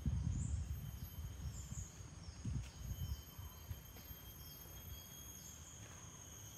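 Steady high-pitched drone of tropical insects, with a second, lower insect tone joining a little under three seconds in and short chirps repeating over it. A loud, irregular low rumble on the microphone fills the first three seconds.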